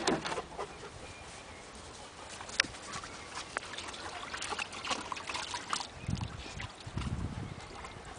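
A flat-coated retriever splashing about in shallow water in a plastic paddling pool: irregular light splashes and sloshes, with a couple of low thuds about six and seven seconds in.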